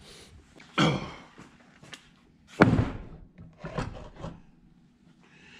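Steel leaf spring packs knocking together and against a workbench as one pack is set beside another. There is a heavy thud about a second in, a louder one near the middle, and lighter knocks after.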